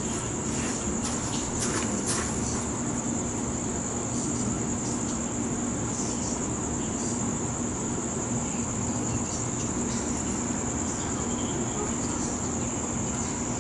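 Crickets chirping in a steady, unbroken high-pitched chorus, over a low steady hum.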